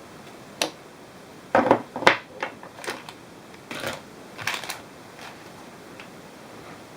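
Irregular clicks and knocks of hard parts being handled and fitted together, on a RAM camera mount, about ten over five seconds, the loudest cluster near two seconds in.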